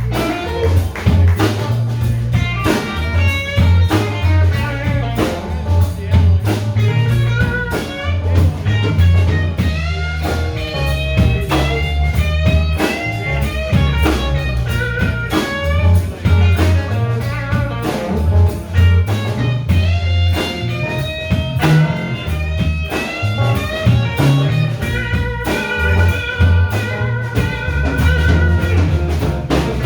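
Live blues band playing an instrumental break: a lead guitar solo with bent and wavering notes over a steady bass line and drums.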